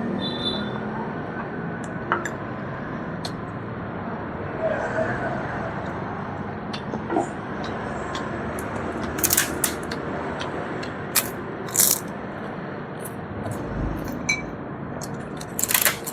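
Scattered sharp clicks and crackles of food and tableware being handled during a meal, over a steady background noise, with a small cluster of them a little past the middle and another near the end.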